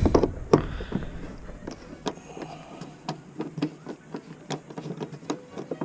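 Light, irregular clicks and taps of a screwdriver working out the last Torx screw holding a van's door trim panel, a few a second, the sharpest about half a second in.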